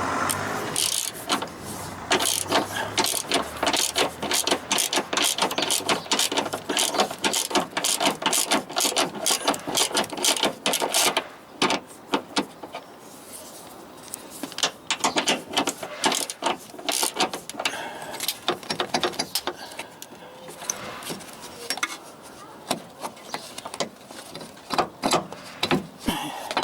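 Socket ratchet on an extension bar clicking in quick runs as a front suspension control-arm bolt is turned, with short pauses between runs.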